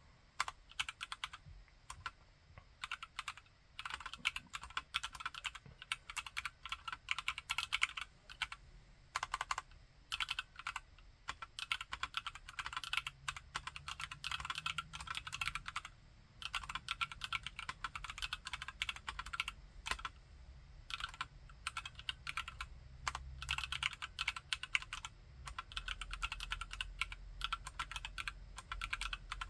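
Typing on a TKC Candybar mechanical keyboard with Akko POM Brown switches: fast runs of keystrokes with short breaks every few seconds.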